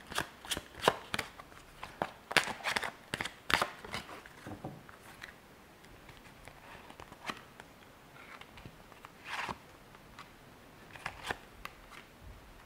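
A deck of Lenormand cards being shuffled by hand: a quick run of soft snaps and taps for the first few seconds, then scattered taps and a short brushing sound as cards are drawn and laid down on a cloth-covered table.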